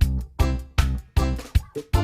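Upbeat background music with a steady beat of about two to three strong beats a second over a bass line.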